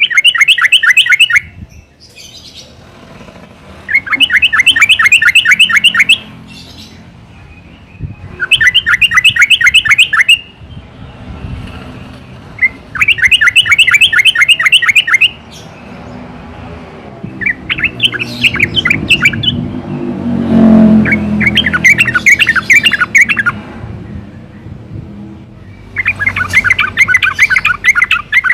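Yellow-vented bulbul singing loud bursts of rapid, bubbling repeated notes, each lasting about two seconds and coming every four to five seconds. A low rumble is under the song near the last third.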